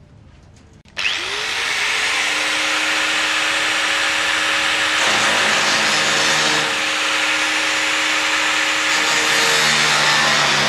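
Hand-held angle grinder switched on about a second in, spinning up and then cutting along the edge of a sheet-metal panel with a loud, steady whine; its tone shifts a couple of times as the disc bears into the metal.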